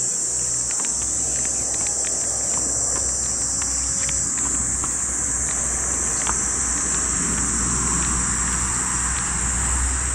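A steady, high-pitched chorus of summer insects, with scattered faint clicks and a low rumble underneath.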